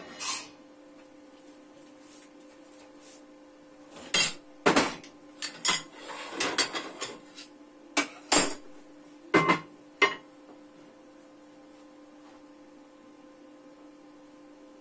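Pieces of thin sheet steel clanking and clattering against metal as they are handled and set down: a single knock right at the start, then an irregular run of about a dozen sharp clanks and rattles between roughly four and ten seconds in.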